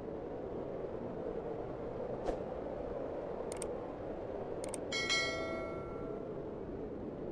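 Steady low background noise with a few sharp clicks, some in pairs, then a short metallic ring with several clear tones about five seconds in, fading over a second or so.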